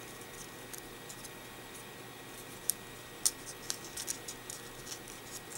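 Folded paper modules of an origami bracelet crinkling under the fingers as a paper tab is worked into a pocket: faint scattered crinkles and ticks, with a few sharper ones about halfway through.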